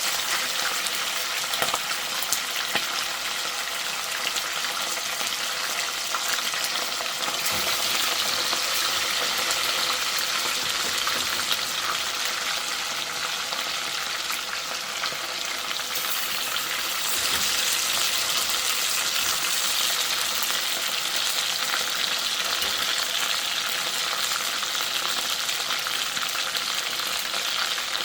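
Chicken frying in a pot of hot oil: a steady crackling sizzle that grows a little louder about seven seconds in and again around seventeen seconds.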